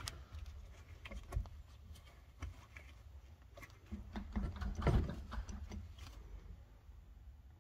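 Scattered light clicks, taps and knocks from hand work, with a louder run of knocks about five seconds in, over a steady low hum.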